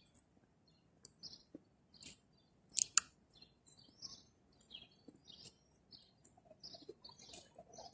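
Faint, scattered chirps of small birds, with two sharp clicks close together about three seconds in.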